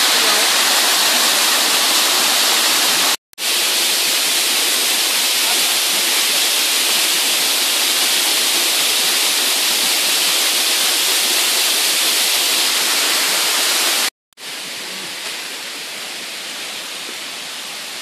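Loud, steady rushing of a cascading waterfall, broken twice by brief cuts. After the second cut, about fourteen seconds in, the rushing water is quieter and carries on steadily.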